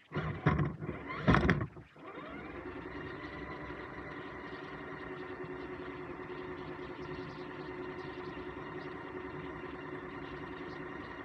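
RC trail truck's electric motor and geared drivetrain running with a steady whine, heard from a camera mounted on the truck. In the first two seconds there are three short, loud bursts of noise.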